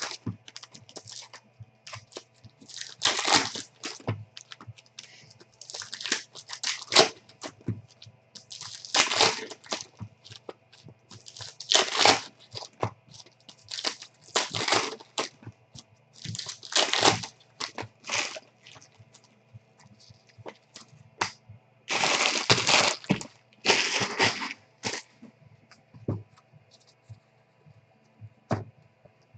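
Foil and plastic trading-card pack wrappers being torn open and crinkled by hand, in short bursts of crackling about every two to three seconds, around ten in all.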